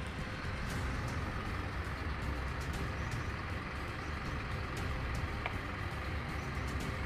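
Steady low rumble of a motor vehicle running, with a few faint ticks.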